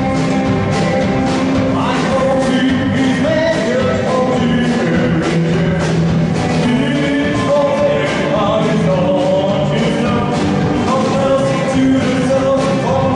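Live band playing a rock song, with sung vocals over a steady drum beat.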